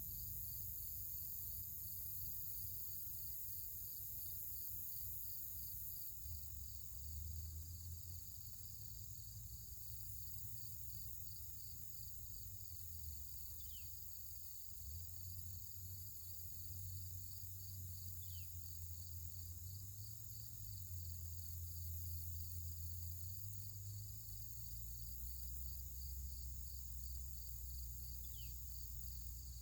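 Outdoor ambience dominated by a steady, evenly pulsing high-pitched insect chirping, with a low rumble underneath. Three short, falling chirps, likely from a bird, come in from about halfway through.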